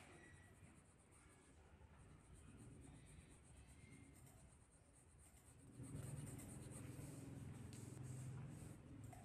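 Faint scratching of a colored pencil on paper, louder in the second half.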